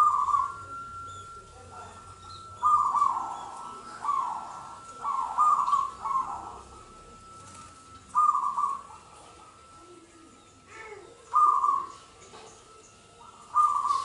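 Zebra dove (perkutut) cooing: a series of short coos repeated at irregular gaps of about one to three seconds.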